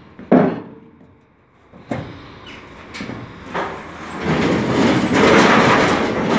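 Footsteps knocking on the metal ramp and floor of an empty livestock trailer, then a metal partition gate inside it being pushed, grating and scraping loudly for about two seconds near the end.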